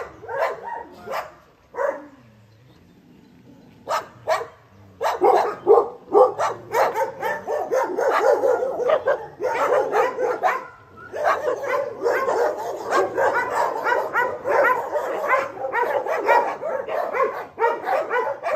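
Many dogs barking in their kennels: a few scattered barks, a lull, then from about five seconds in a dense chorus of overlapping barking from many dogs at once.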